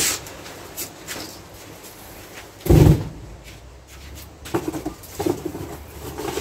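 A dull, low thud about three seconds in as cardboard crucible boxes are set down on a barbecue hood, with a few lighter knocks and cardboard handling around it.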